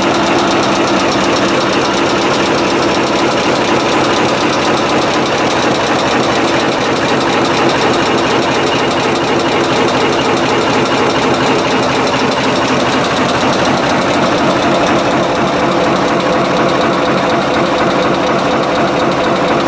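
Double-blow heading machine for bolts, pins and rivets running, with rapid, steady, even knocking from its strokes over a steady mechanical hum.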